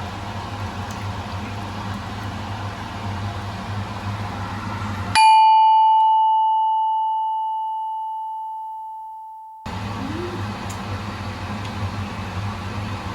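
A single bell-like ding, struck once about five seconds in and ringing out for about four seconds before it cuts off, over a steady noisy hum. The background vanishes completely while the ding rings, so it is an edited-in chime sound effect.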